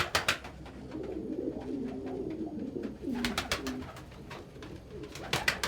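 Domestic pigeons cooing in repeated low phrases, with three short runs of quick sharp taps or clicks.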